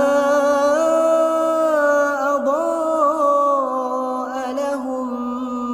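Melodic Qur'an recitation: a single voice holds one long, ornamented phrase. The pitch steps up just before a second in, wavers around the middle and settles lower toward the end.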